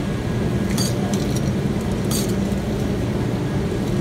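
Steady low mechanical hum, with a few brief clicks and rustles as metal tongs pick through a bin of live crawfish.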